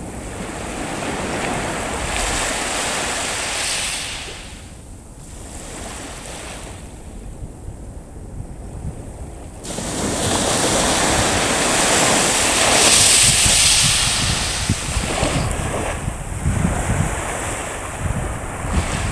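Small waves breaking and washing up a sandy shore, the surf hiss swelling and ebbing, louder from about halfway through. Wind buffets the microphone with irregular low rumbles in the later part.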